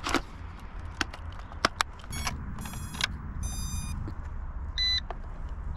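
A few short electronic beeps from the Yuxiang F09S RC helicopter's radio system as it is readied for takeoff, among handling clicks and knocks. Wind rumble on the microphone runs underneath.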